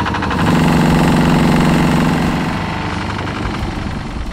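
Engine of a wooden Thai longtail boat running under way, a loud steady drone that drops off a little after about two and a half seconds.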